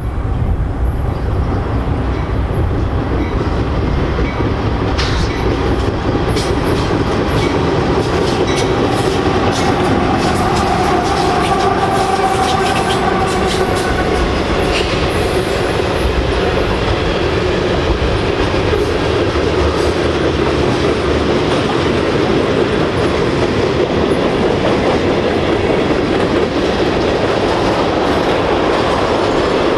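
Norfolk Southern manifest freight train passing close by. Its three GE diesel locomotives, a D9-44CW, an ET44AC and an ES44AC, come up and go by first. A long string of refrigerator boxcars and tank cars follows, rumbling steadily, their wheels clacking over the rail joints from about five seconds in.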